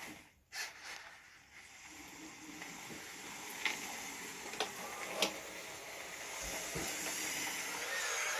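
Radio-controlled model construction machine at work: a steady mechanical hiss that slowly grows louder, with three sharp clicks about halfway and a dull thud a little later.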